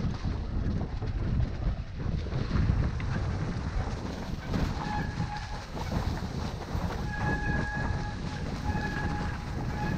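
Mountain bike riding down a dirt singletrack strewn with dry leaves: tyres rumbling over the ground and the bike rattling over bumps, with wind on the microphone. In the second half a faint whine comes and goes several times.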